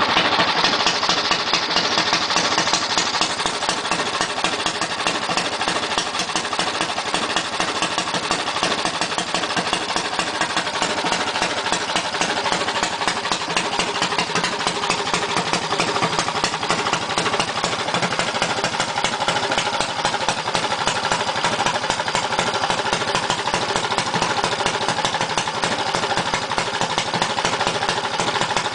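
Briggs & Stratton Animal single-cylinder four-stroke kart engine running steadily on a stand with an even, rapid firing beat, a little brighter in the first few seconds. It is being broken in: a fresh engine's first run-in.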